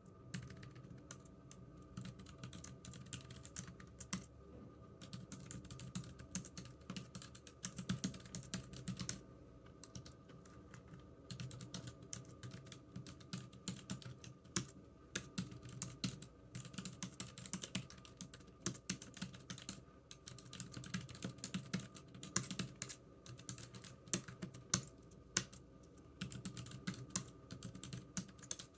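Typing on a computer keyboard: quick runs of key clicks with short pauses between them, twice near the first third.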